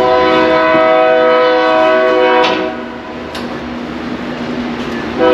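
Multi-chime train air horn sounding a long blast of several notes at once, about two and a half seconds, with a second blast starting near the end.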